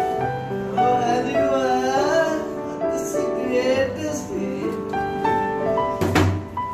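Background music: keyboard notes with a singing voice that wavers in pitch, and a short burst of noise near the end.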